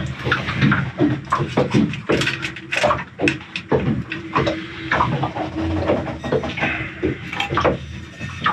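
Irregular knocks, clicks and clatter of rubber hoses and metal engine fittings being handled, over a steady low hum.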